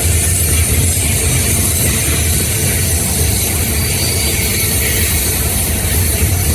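Freight train rolling past: a steady low rumble with rapid rattling and clatter from the cars.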